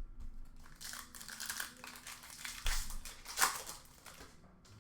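Trading card pack wrappers crinkling and tearing as hockey card packs are ripped open and the cards handled, with irregular rustling and a sharper crackle about three and a half seconds in.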